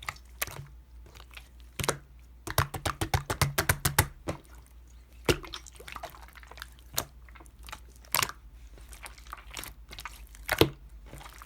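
Slime being squeezed and poked, giving sharp wet clicks and pops: a quick run of clicks about two to four seconds in, then single pops every second or two.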